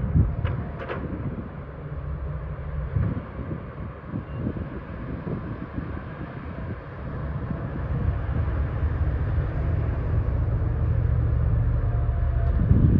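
Diesel engine of heavy earthmoving machinery running under load, a low drone with a few sharp clanks in the first second; the engine grows louder and steadier about eight seconds in.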